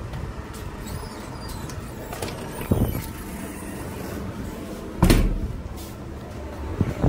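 Handling noise from a phone being carried while walking, with a steady background rumble and a few thumps, the loudest about five seconds in.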